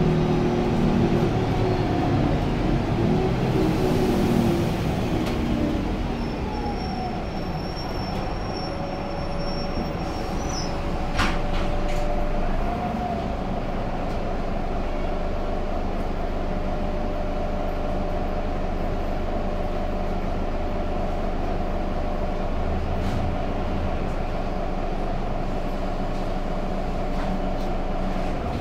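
Irisbus Agora L articulated city bus heard from inside the passenger cabin while under way: drivetrain whine over road and running noise. The whine falls in pitch over the first few seconds, then holds steady. A single sharp click comes about eleven seconds in.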